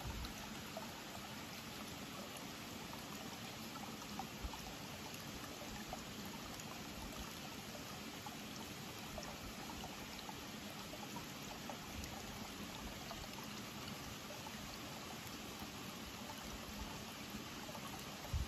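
Water pouring steadily from a pipe spout into a small rock-lined garden pond, a continuous trickling splash. A few soft low bumps sound over it, one near the end.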